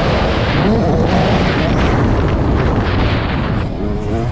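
A 65cc two-stroke motocross bike's engine revving up and down under heavy wind rumble on the microphone. The wind rumble is the loudest part, and the engine eases off briefly near the end.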